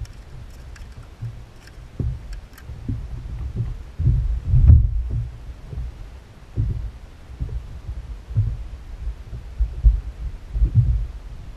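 Low, irregular thumps and rumble from a fishing kayak sitting on choppy sea, picked up by the camera mounted on the boat, loudest about five seconds in. A few faint ticks sound in the first three seconds.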